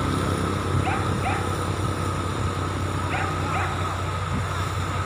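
An animal's short calls, in pairs with a slight fall in pitch, heard twice, over a steady low hum.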